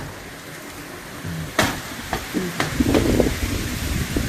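Rain falling with a steady hiss, broken by several sharp knocks and clicks from handling, the loudest about a second and a half in.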